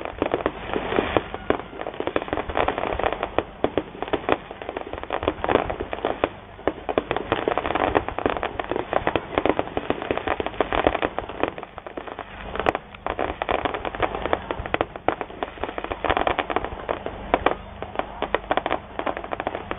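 Aerial fireworks bursting: a dense, unbroken run of sharp pops and crackles, some much louder than others, from crackling star shells.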